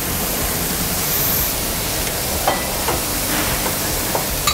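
Pork and vegetables frying in a pan over a gas burner, a steady hiss, with a few light taps of utensils.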